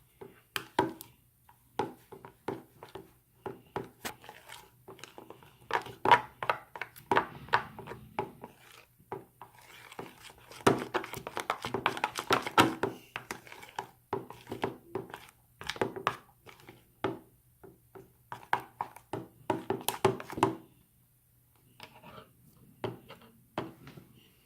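Slime mixture being stirred in a bowl: a long run of irregular quick clicks and taps against the bowl, busiest around the middle, with a short pause near the end.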